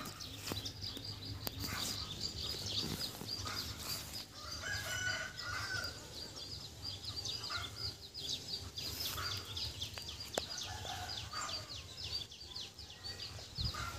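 Birds chirping in quick high repeated notes, with a rooster crowing and chickens clucking.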